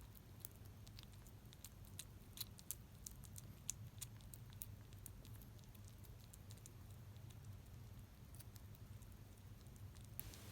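Kitten eating soft weaning food from a spoon: faint, irregular wet licking and chewing clicks over a low steady hum.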